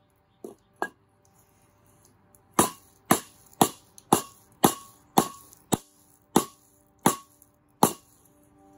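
Rubber mallet striking a wooden block held on top of metal garden edging, driving the edging down into the soil. Two light taps, then about ten sharp knocks at roughly two a second.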